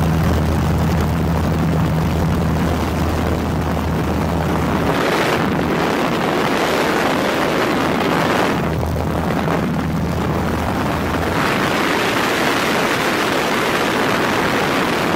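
Aircraft engine drone heard from aboard the aircraft: a low steady hum under a loud rushing of air, the hum fading out for a few seconds twice while the rushing goes on.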